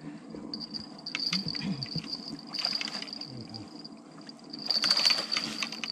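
Water splashing in two bursts, the louder one about five seconds in, over a steady high insect whine.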